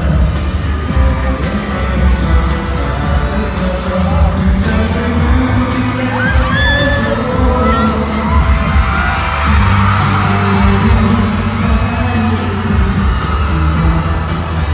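Pop concert music over arena speakers, a heavy bass beat with singing, with fans screaming and cheering over it.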